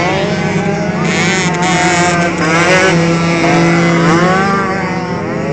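Several motocross bikes racing around a dirt track, their engines revving up and down together, with a steady low drone underneath.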